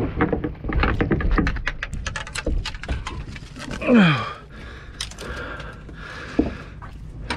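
Tarpon thrashing in a landing net at the boat's side, a rapid run of splashes and slaps for about three seconds. About four seconds in there is a short falling grunt of effort as the heavy net is hoisted aboard, then quieter, with a single knock of the net and fish landing on the deck.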